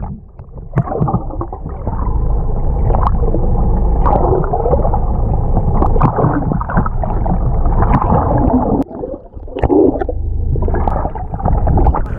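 Muffled underwater sound from a camera held below the sea surface: water rushing and gurgling against the housing, with scattered clicks and a brief dip in level about nine seconds in.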